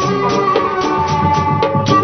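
Sundanese tanji band music for kuda renggong: drums and a kecrek, a stack of metal plates struck with a stick, keep a steady beat of about four strokes a second under a melody held in long notes.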